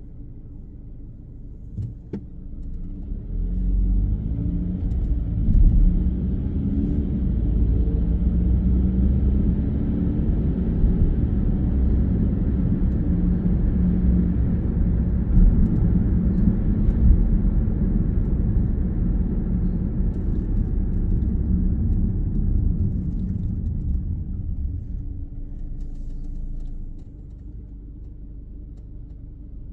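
Car engine and tyre rumble heard from inside the cabin. It is quiet at first while the car waits, with a single click about two seconds in. Then the car pulls away and the low rumble swells as it speeds up, holds steady, and drops back near the end as the car slows.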